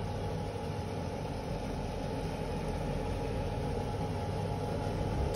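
A steady, even mechanical hum with a hiss above it, unchanging throughout.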